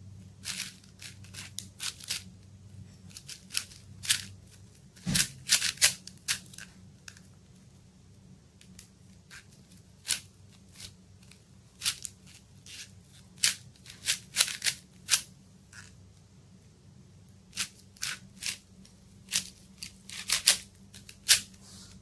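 Plastic 4×4 Rubik's cube being turned by hand: quick clacking layer turns in irregular bursts of several clicks, with short pauses between bursts.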